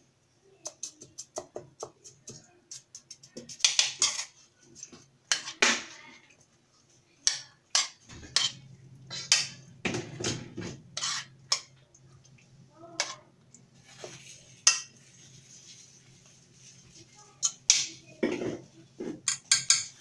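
A metal spoon clinking and scraping against a stainless steel pot while stirring and spooning tomato sauce over meat, in irregular sharp knocks and scrapes. A low steady hum comes in about eight seconds in.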